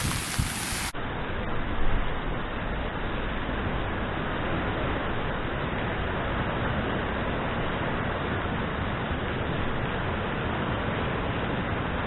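Steady rushing noise of strong wind and surf, even and unbroken. About a second in, it switches abruptly to a duller version with the top end cut off.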